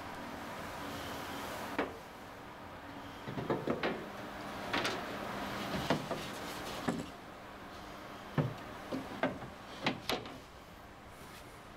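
Varnished wooden floorboards being handled and laid into a boat hull: a dozen or so irregular wooden knocks and clunks as board meets board and frame, some in quick pairs.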